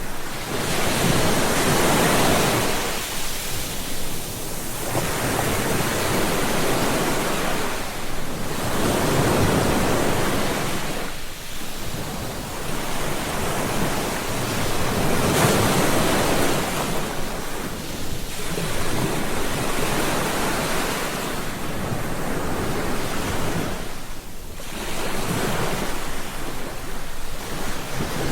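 Ocean waves breaking on a beach, the surf swelling and ebbing every few seconds in a steady rhythm.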